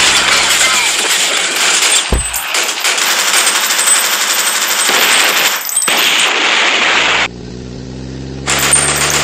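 Sustained rapid machine-gun fire, a dense unbroken rattle of shots, with a single low thud about two seconds in. Near the end the firing stops for about a second, leaving a low steady hum, then starts again.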